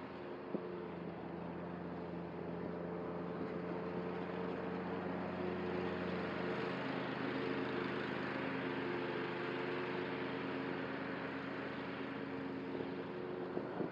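Cub Cadet ZTS1 zero-turn mower's engine running under load while mowing tall grass and weeds: a steady engine drone that grows slightly louder through the middle and eases off again.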